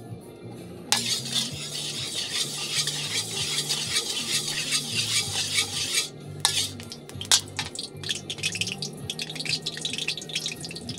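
Stir-fry in a pan: a sudden loud sizzle about a second in as vegetables hit hot oil, then a spatula stirring, with repeated scraping and clicking against the pan.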